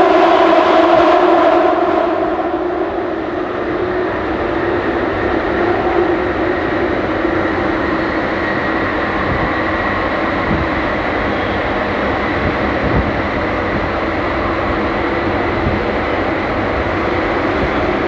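Jubilee line tube train (1996 Stock) running through the tunnel, heard from inside the carriage: a steady rumble with a motor whine, easing slightly about two seconds in.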